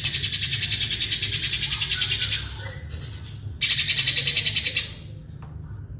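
Lovebird giving its long, harsh, rapidly pulsed rattling trill: one bout stops about two and a half seconds in, and a second, shorter bout follows about a second later.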